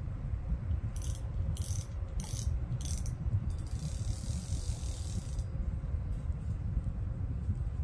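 Spinning reel (KastKing Centron, 4000 size) being cranked, its gears giving a steady fast low rattle, with four sharp clicks about half a second apart and a brief hiss near the middle.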